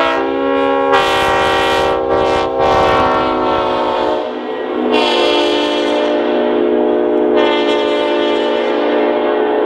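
1978 Leslie RS5T-RF five-chime air horn sounding a long, loud chord. There is a rush of noise from about one to three seconds in, the pitch sags slightly around three to four seconds in, and the chord swells again about five seconds in.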